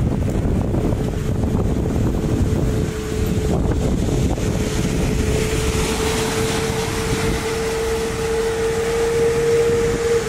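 Wind buffeting the microphone of a bicycle-mounted camera while riding, heard as a steady low rumble. About halfway through, a single steady hum comes in and grows louder toward the end.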